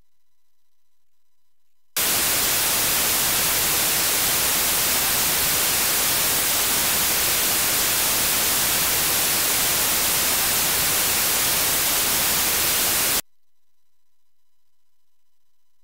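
Steady white-noise hiss across the whole range, the audio of an 'infrasound test' video played back in Adobe Audition. It switches on abruptly about two seconds in and cuts off just as abruptly about eleven seconds later.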